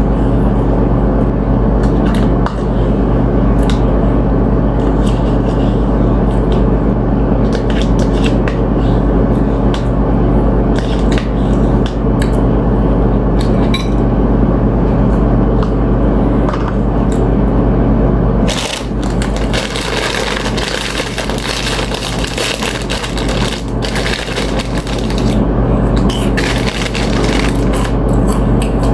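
Close-up eating sounds: scattered clicks and scrapes, then dense crunching of tortilla chips from about two-thirds of the way in, over a steady low hum.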